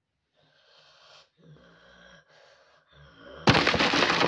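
Faint rustling, then about three and a half seconds in a sudden loud crackling and crinkling as something is crumpled and handled right against the microphone.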